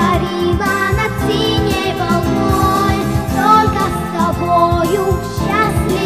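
A girl's voice singing a song over a backing track, with vibrato in the held notes.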